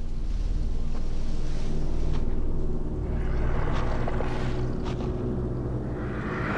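Deep, steady rumbling drone of film sound design, with a few faint clicks and a breathy hiss that swells about halfway through and again near the end.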